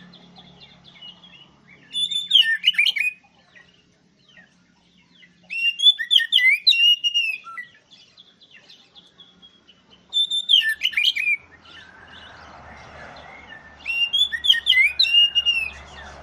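Oriental magpie-robin (kacer) singing loudly in four separate phrases of quick sweeping whistles and trills, each about a second and a half long with pauses between them. A faint low rumble comes in during the second half.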